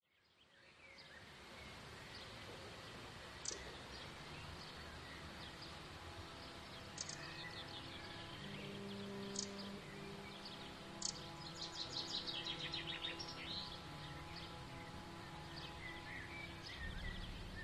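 Songbirds chirping and trilling over a steady outdoor background: a few sharp high chirps, then a burst of rapid trills. The sound fades in at the start.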